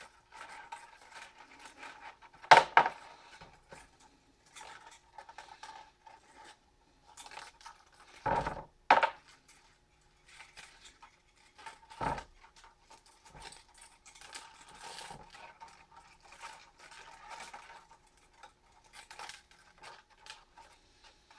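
Copper winding being unwound and pulled off a CRT deflection yoke, with light scratching and rustling of the wire. Sharp clinks and knocks of the yoke's parts are heard, the loudest about two and a half seconds in, a double one near nine seconds, and another near twelve seconds.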